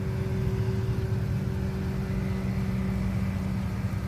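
Steady low mechanical hum with a constant droning tone, unchanged throughout.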